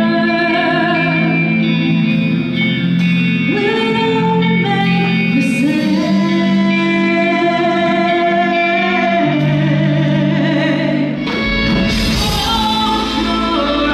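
Music with singing, long held vocal notes over instruments; about eleven seconds in, a deep bass beat comes in.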